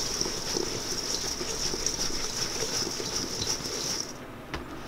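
Maraschino cherries and confectioners' sugar being shaken around a stainless steel mixing bowl to coat the cherries, a steady swishing hiss with soft tumbling underneath. It stops about four seconds in, followed by a single light knock.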